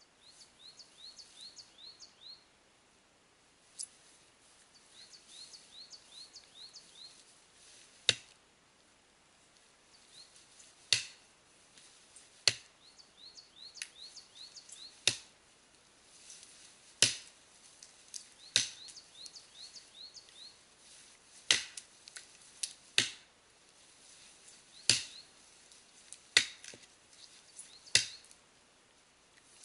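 Axe chopping into a standing tree trunk with upswing strokes into the felling cut: about a dozen sharp strikes one to three seconds apart, mostly from about eight seconds in, with a single earlier knock.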